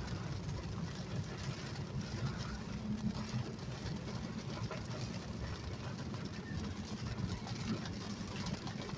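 Steady rumble of a car driving, heard from inside the cabin, with the hiss and patter of rain and wind against the car in a storm downpour.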